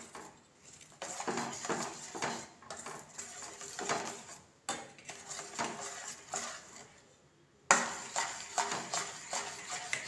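Metal spoon scraping and clinking against a steel bowl while stirring a runny melted chocolate mixture, in repeated strokes. The stirring stops for about two seconds past the middle, then starts again suddenly.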